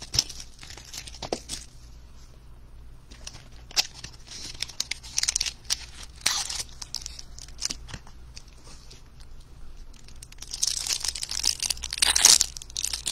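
Plastic wrapping on a box and pack of Panini Absolute baseball cards crinkling and tearing in the hands as it is pulled open. Scattered rustles and crackles, with the loudest, densest crinkling near the end as the pack is torn open.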